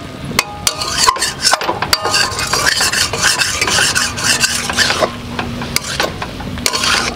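Flat metal spatula scraping and knocking against a metal kadai, stirring frying greens and vegetables, with the food sizzling in the pan. The knocks come irregularly throughout.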